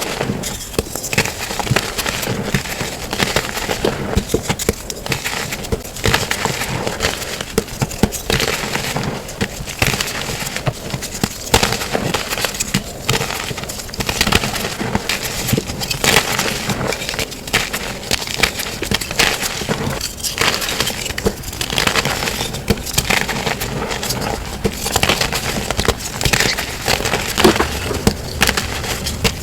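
Plain gym chalk blocks and reformed chalk being crushed and crumbled, a continuous dense crunching crackle of many small snaps packed close together.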